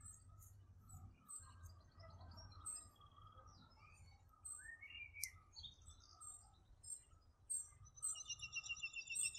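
Several birds chirping and calling, with many short high chirps and a fast trill of repeated notes near the end, over a faint low rumble.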